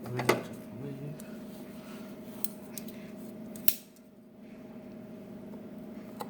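Small clicks and scraping as an O-ring is worked off the oil filter housing cap, with a sharp click about three and a half seconds in, over a steady low hum.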